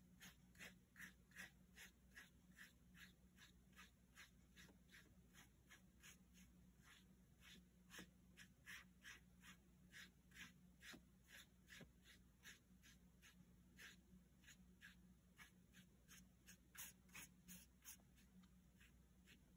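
Faint, soft swishes of a paintbrush stroking watercolour paint mixed with baking soda across paper, about two or three strokes a second.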